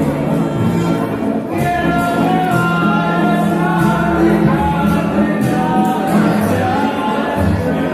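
Live band playing, with a singer coming in about a second and a half in over a steady bass line.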